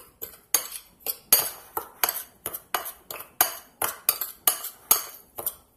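Metal spoon stirring dry spice rub in a bowl, clinking against the bowl about four times a second, stopping near the end.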